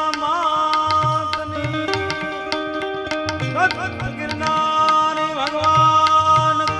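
Live Indian devotional folk music: tabla drumming with the bass drum's gliding strokes and crisp treble strokes. Bright clicks from small hand cymbals (manjira) and a sustained melody line with held, bending notes play over the drums.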